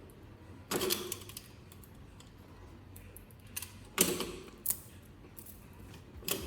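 Three short bursts of clattering clicks and knocks: about a second in, about four seconds in, and near the end. No motor is running.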